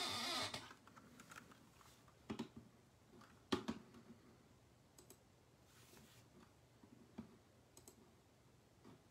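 Faint, scattered small clicks and taps at uneven intervals, the sharpest about three and a half seconds in, after a short rush of noise right at the start.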